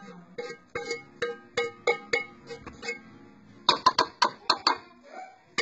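Background music of plucked notes, about three a second. A little past halfway comes a quick run of sharp clinks: a spoon knocking against the bowl as gravy is tipped off it.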